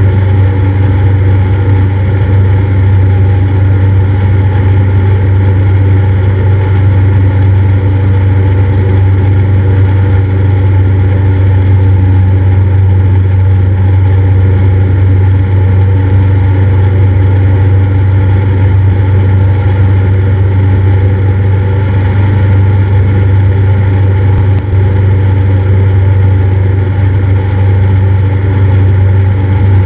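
Cessna 172's single piston engine and propeller running at a steady, unchanging drone, with a strong low hum.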